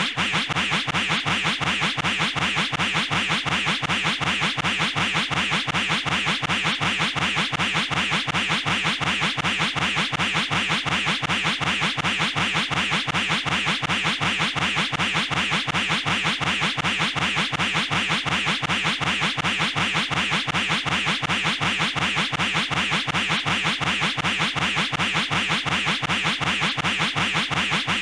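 A cartoon sound effect looped without change: rapid, even, scratch-like pulses repeating several times a second.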